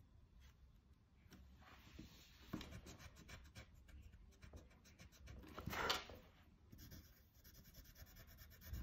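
Faint scratching and rubbing of pencil on paper: a word is rubbed out with the pencil's eraser and written again in graphite. A brief louder scrape comes about six seconds in.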